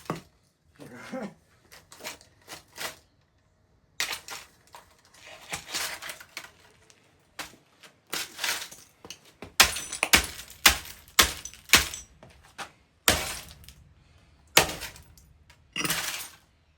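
A laptop being smashed apart: a string of irregular hard knocks and cracks of plastic and metal, light and sparse at first, then coming thick and loud about halfway through.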